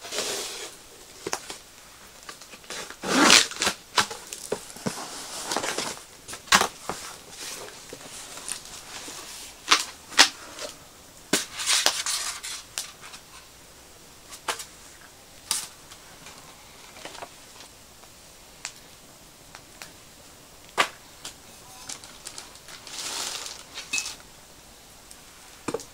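Unboxing noises from a cardboard box holding a stainless-steel fire bowl: irregular rustling and scraping of cardboard flaps and packing material, broken by sharp clicks and knocks. Near the end, the stainless-steel grill grate is lifted out of the box.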